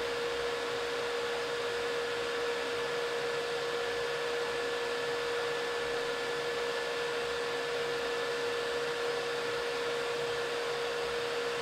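Anycubic Vyper 3D printer running mid-print: a steady whir of its fans and motors with one constant howling tone, settling at about 65 dB and annoyingly loud.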